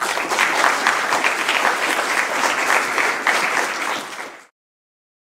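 Applause: many hands clapping together, which stops abruptly about four and a half seconds in.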